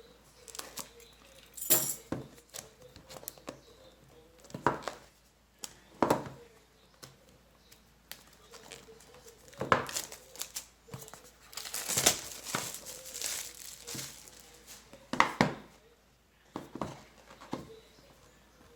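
A product box and its packaging being opened and handled by hand: irregular crinkling, scraping and sharp taps, with a longer stretch of rustling about twelve seconds in.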